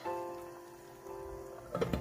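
Background music with held notes, and near the end a short clatter as a glass lid is set down on a stainless steel cooking pot.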